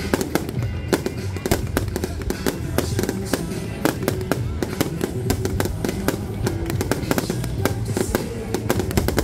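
Aerial fireworks shells bursting in quick succession, a dense run of bangs and crackles several times a second, with music playing underneath.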